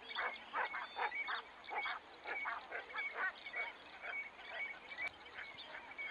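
A chorus of animal calls, short croaks repeating irregularly several times a second, with short high chirps among them.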